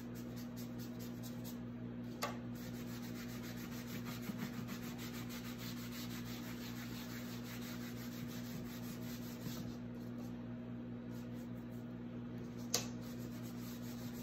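A cloth rag rubbing and wiping dark wax across a painted hardcover book, working the wax back off the cover and its moulded trim. A steady low hum runs underneath, with a light knock about two seconds in and another near the end.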